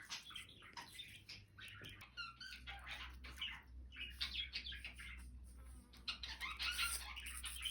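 Indian ringneck parakeet eating apple: soft short chirps scattered among many small clicks of its beak.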